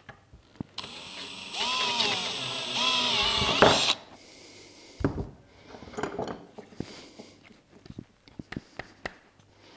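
Cordless drill boring a hole through a plastic rifle stock, starting about a second in: the motor whine rises and falls in pitch for about three seconds as the bit cuts. Afterwards scattered light clicks and knocks as the drill and stock are handled.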